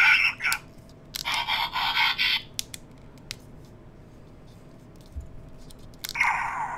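Electronic sound effects from the Takara MP-36 Masterpiece Megatron's blaster barrel played through its tiny built-in speaker, thin with no low end: one clip about a second in lasting about a second, and another starting near the end. Light clicks come between them.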